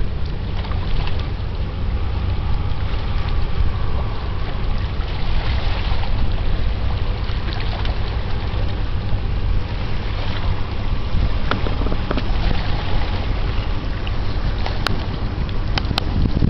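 Wind buffeting the camera microphone: a steady low rumble with a light wash of water and waves under it. Two sharp clicks near the end.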